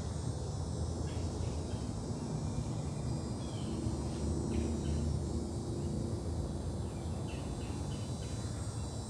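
Steady chirring of insects, with a constant low rumble underneath.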